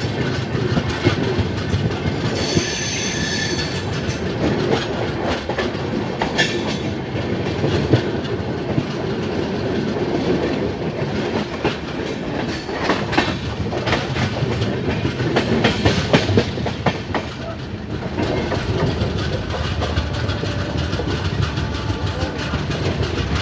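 Passenger express train running, heard from aboard: a steady rumble with wheels clacking over the rail joints, and a brief high squeal about three seconds in.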